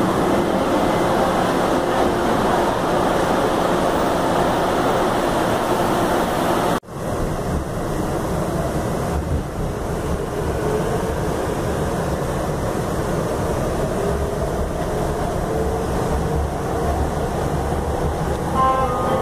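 Running noise of a new metro train heard from inside the passenger car: a steady rush and rumble of wheels and running gear. The sound cuts out for an instant about seven seconds in, and the low rumble is stronger after that.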